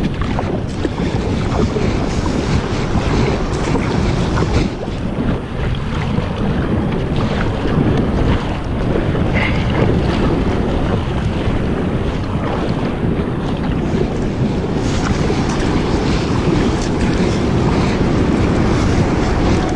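Wind buffeting the microphone over the sound of sea waves and water washing around a kayak, a steady loud rush throughout.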